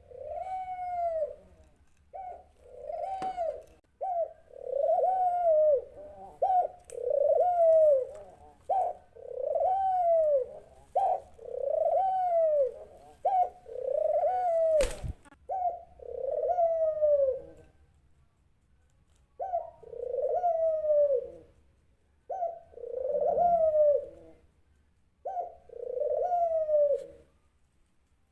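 A dove cooing over and over, each coo a short lead-in note followed by a longer coo that rises and falls, about one every one and a half seconds, with a couple of short pauses. A single sharp click comes a little past halfway.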